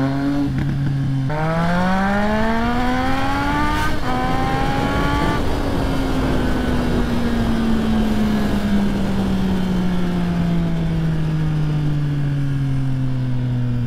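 Triumph Street Triple's inline three-cylinder engine revving out under hard acceleration. About a second in the revs jump and climb for several seconds, with a brief break about four seconds in. The revs then fall slowly as the rider rolls off, over a steady rush of wind.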